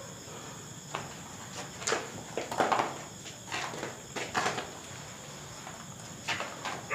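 Crickets chirping steadily at a high pitch, with scattered footsteps and scuffs coming at irregular moments.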